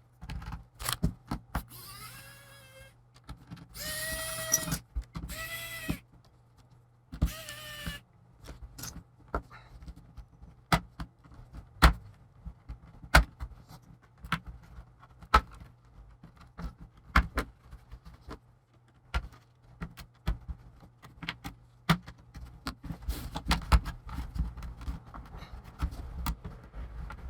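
Small electric screwdriver whirring in four short runs, then scattered sharp clicks and taps of tools and screws on the laptop's plastic case.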